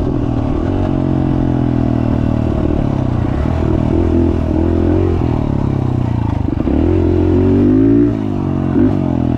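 Dirt bike engine running as it is ridden, its pitch rising and falling with the throttle. It revs up for a stretch about seven seconds in, drops suddenly at about eight seconds, and gives a short rev just after.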